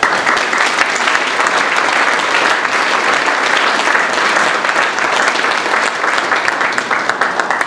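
Audience applauding: many hands clapping at an even level, cutting off sharply at the end.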